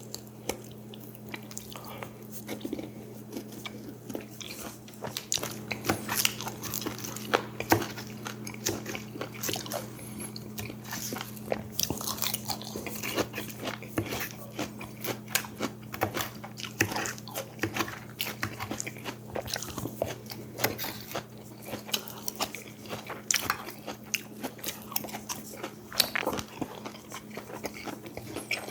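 A person eating close to the microphone: wet chewing and biting with many small crunches and clicks, several a second. A steady low hum runs underneath.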